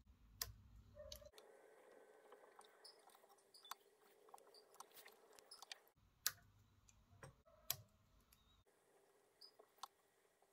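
Mostly quiet, with a scatter of sharp small clicks from fine scissors snipping thread and fingers handling a tiny jig at a fly-tying vise; the loudest two clicks come a little past the middle.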